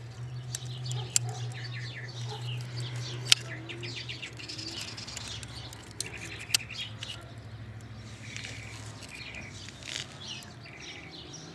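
Birds chirping and twittering, with a few sharp metal clicks and taps from a screwdriver and vice grip working at a stuck piston pin in a small Briggs & Stratton engine. A low steady hum sits underneath and fades out near the end.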